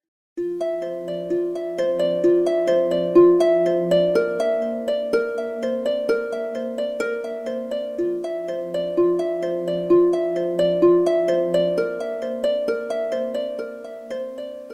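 Stock ringtone of an Alcatel OneTouch POP C3 phone: a looping melody of quick plucked notes over a slower bass line, starting just after the beginning and fading out near the end.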